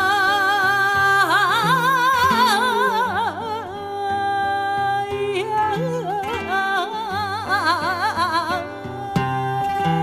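Flamenco song: a singer holds long, wavering, ornamented notes without words over acoustic guitar.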